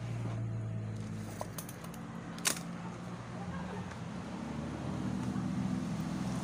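A steady low mechanical hum like an engine running, with one sharp clank about two and a half seconds in.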